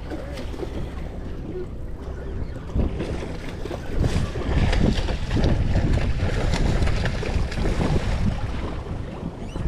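Wind buffeting the microphone over water sloshing against a boat's hull at sea, swelling louder for a few seconds in the middle.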